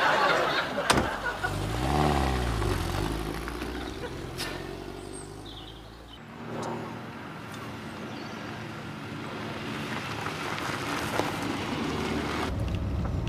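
Small car engine revving as the car pulls away and passes, its pitch rising then falling, followed by the steady hiss of the car driving along a road.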